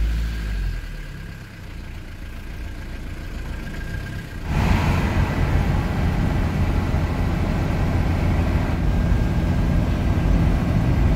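Camping-car engine heard from inside the cab, first fairly low and steady, then about four and a half seconds in a sudden jump to the louder engine and road noise of driving at speed.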